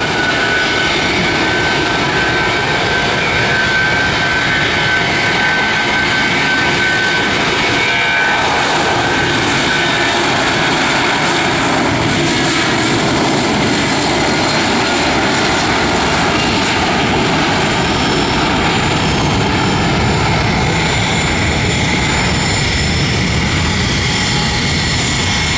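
A Boeing 757-200's two jet engines running steadily as the airliner moves along the runway on the ground, with a high whine over the noise for about the first eight seconds.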